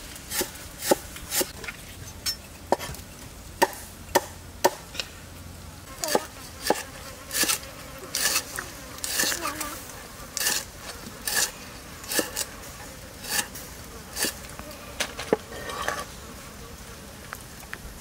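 A steel cleaver chopping on a wooden chopping board, with sharp, irregular strikes about one or two a second.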